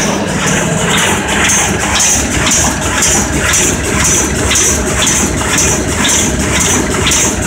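TechnoCut 1050 automatic die-cutting machine running at production speed: a steady mechanical drone under a regular clatter of strokes as the gripper bars carry sheets through.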